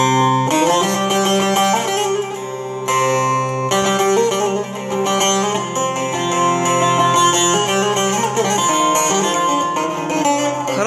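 Electro-acoustic bağlama with a built-in equaliser playing a quick plucked melody over a steady drone of ringing low strings.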